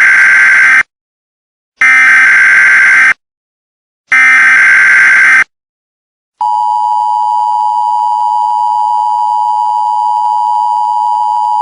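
Emergency Alert System broadcast tones, loud. First come three bursts of the harsh digital SAME header data, each just over a second long with short silent gaps; the first is already under way at the start. Then, about six seconds in after a brief silence, the steady two-tone EAS attention signal starts and holds.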